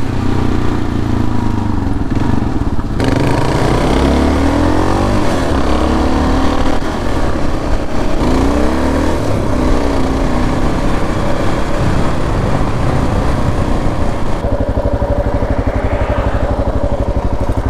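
Kawasaki KLR650 single-cylinder motorcycle engine running under way over a rush of wind and road noise, its pitch rising and falling with throttle and gear changes. The sound changes abruptly about three seconds in, and again near the end, where an even, pulsing engine note takes over.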